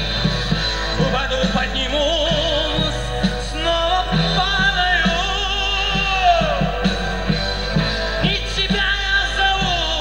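Rock band playing live: a drum kit keeps a steady beat under a wavering lead melody with vibrato.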